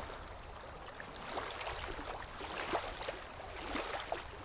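River water lapping and gurgling, with small irregular splashes of oars dipping as a small wooden rowboat is rowed.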